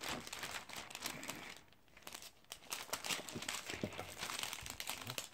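Clear plastic cover film on a diamond painting canvas crinkling and crackling as hands press and smooth it flat, with a quieter lull about two seconds in.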